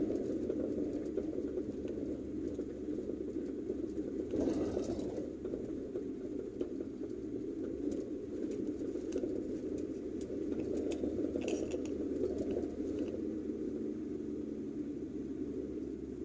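Car driving on a paved road, heard from inside the cabin: a steady low rumble of engine and tyre noise. A brief louder rush of noise comes about four seconds in, with a few faint clicks later on.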